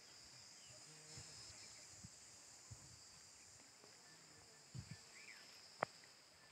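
Near silence with a faint, steady high-pitched insect drone, a single short bird chirp about five seconds in, and a couple of soft thuds followed by a sharp click near the end.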